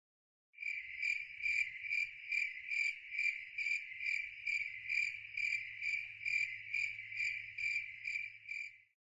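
A steady, high, insect-like trill, like a cricket, pulsing a little over twice a second; it starts about half a second in and cuts off near the end.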